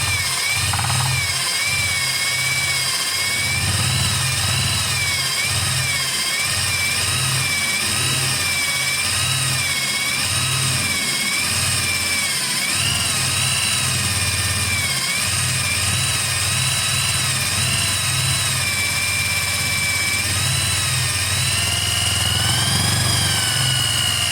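An electric drill runs continuously, spinning a dry sycamore spindle hard against a sycamore baseboard for a friction fire. Its motor whine wavers up and down in pitch as the speed changes.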